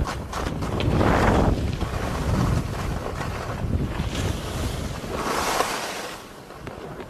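Wind buffeting the microphone as a skier glides downhill, with the hiss of skis sliding over packed snow swelling twice, about a second in and again around five seconds in.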